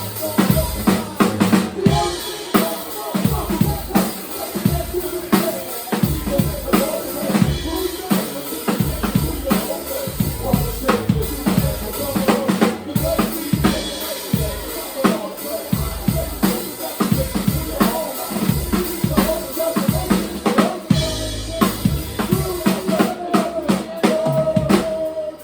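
Live band playing, with a drum kit to the fore: a driving rhythm of kick drum and snare under sustained pitched instruments.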